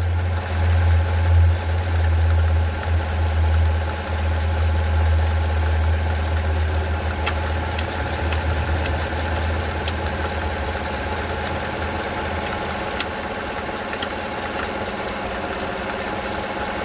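GM Gen V LT V8 idling with an uneven low pulsing drone that fades about twelve seconds in, plus a few sharp ticks. The owner feels the engine jerk with the noise, which does not occur at higher RPM, and suspects the timing chain or a broken tensioner.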